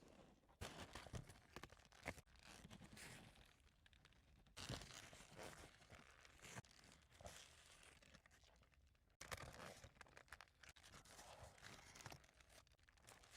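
Faint eating sounds from a large kebab wrap: bites into the wrap and chewing, in irregular bursts every second or two, with some crinkling.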